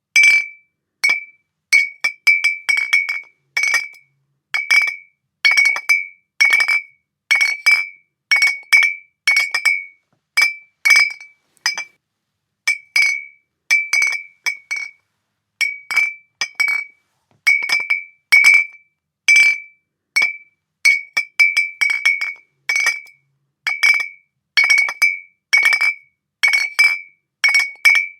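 Glass bottles clinking together in a long, irregular run of sharp clinks, roughly one to three a second. Each clink rings briefly at the same clear pitch.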